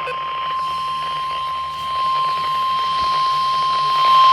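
NOAA Weather Radio 1050 Hz warning alarm tone: a single steady beep over faint radio hiss, getting louder near the end. It is the alert signal that comes before a National Weather Service warning broadcast, here a special marine warning.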